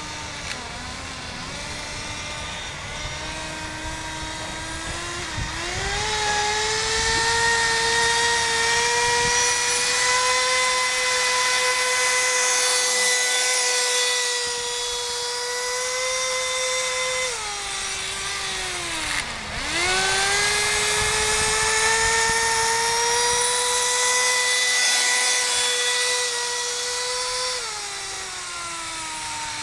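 Kyosho Nitro Blizzard RC snowcat's .11 nitro engine running, high-pitched. It idles, revs up a few seconds in and is held at high revs for about eleven seconds. It drops back, revs up again for a second run of about eight seconds, then falls back near the end.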